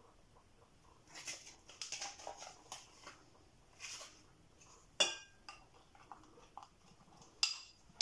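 A spoon stirring and tapping in a small glass bowl, mixing baking powder into flour, with soft scrapes and two sharp clinks that ring briefly, about five seconds in and again near the end.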